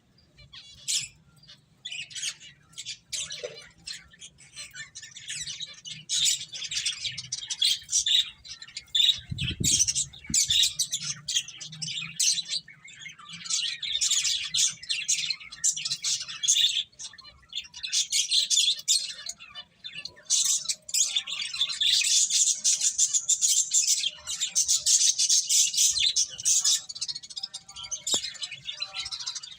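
A group of finches chirping in quick, overlapping calls, growing denser and more continuous in the second half. A single soft low thump about a third of the way in.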